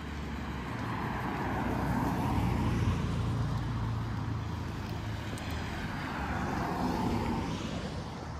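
Two cars driving past on the street one after the other, each passing swelling and fading with tyre and engine noise. The first is loudest about three seconds in, the second about seven seconds in.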